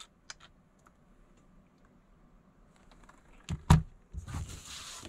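Light clicks of hands handling small tools and a plastic case, then two sharp knocks of things set down on the table about three and a half seconds in, followed by a brief rustle of a thin magnetic sheet sliding on the tabletop.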